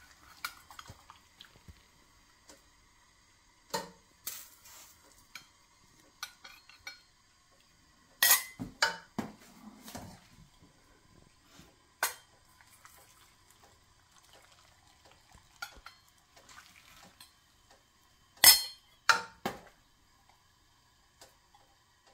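A metal ladle and a stainless steel canning funnel clink sharply against glass canning jars as hot brine is ladled into jars of sliced squash. There are two loudest clusters of clinks, about eight seconds in and again near eighteen seconds, with a little pouring liquid between them.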